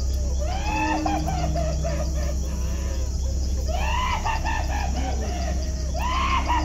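Rooster crowing three times, each crow about two seconds apart and rising then falling, over a steady low hum.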